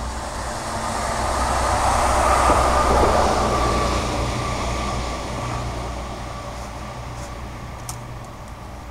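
A vehicle passing by on the street, its noise swelling to a peak about three seconds in and then slowly fading away.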